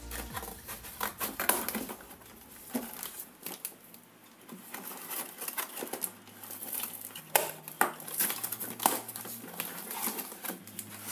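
Cardboard packaging being cut with scissors and pulled apart: crinkling and rustling of cardboard and paper, with scattered sharp snips and clicks.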